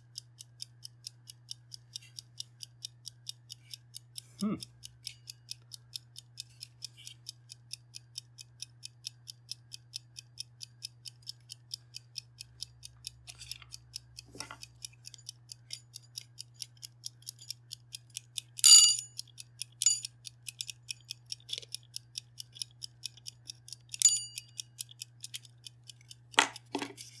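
A cheap mechanical kitchen timer's exposed clockwork escapement ticking steadily, about four ticks a second, over a low steady hum. Two sharper metallic dings with a ringing tone, about two-thirds through and near the end.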